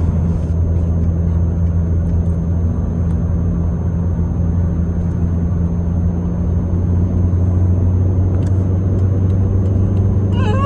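Car driving on the road, heard from inside the cabin: a steady low drone of engine and road noise.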